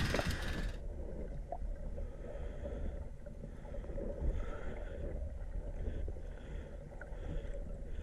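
Steady low rumble of wind and water noise on a small boat at sea. A louder hiss at the start cuts off under a second in.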